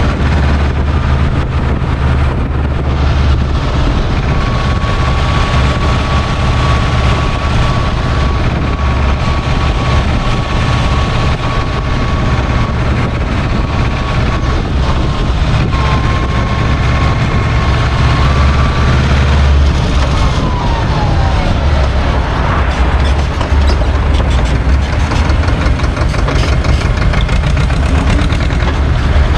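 Small SAME tractor's two-cylinder diesel engine running steadily as the tractor drives along, heard loud and close from on board. A thin steady whine runs through the middle of the stretch, and a brief falling tone follows about two-thirds of the way in.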